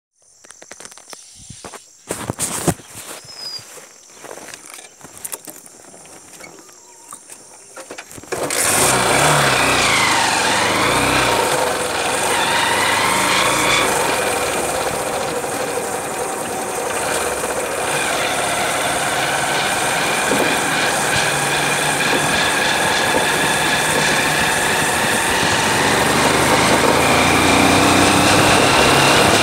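A few quiet clicks and knocks, then about eight seconds in a motorcycle engine comes on suddenly and runs steadily as the bike rides along, with wind rushing on the microphone.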